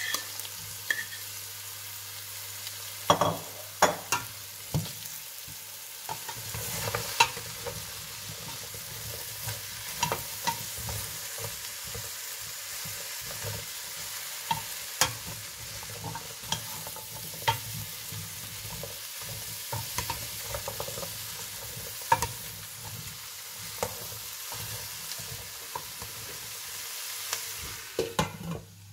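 Diced onion, potato, carrot and celeriac sizzling in butter in a stainless steel pot, as a spatula stirs and scrapes the vegetables with frequent clicks and knocks against the pot. Near the end a glass lid clinks onto the pot and the sizzle goes quieter.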